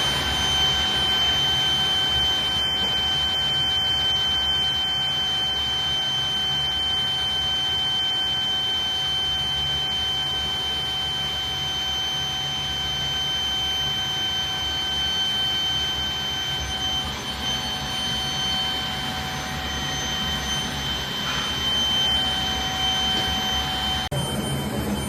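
A 100 kg steel melting furnace running under test, giving a steady high-pitched whine with fainter fixed tones over a continuous rushing noise. The sound changes abruptly about a second before the end.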